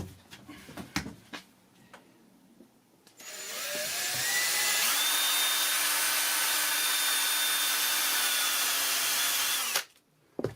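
A few knocks, then an electric power tool's motor spins up about three seconds in, rising in pitch, runs steadily for about five seconds, and stops suddenly near the end.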